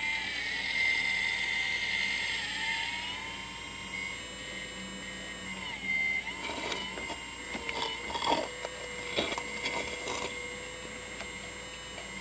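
Kabolite 970 RC hydraulic excavator running: its hydraulic pump gives a steady whine that shifts in pitch as the boom and arm move, with a louder hiss for the first few seconds. From about six seconds in come a scatter of short knocks and scrapes as the bucket digs into the loose soil pile.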